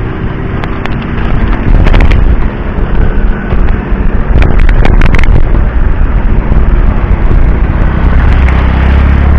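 Heavy wind rumble on the microphone of a moving road bike, with a few sharp knocks about 2 seconds in and again around 5 seconds, as the tyres cross railway tracks.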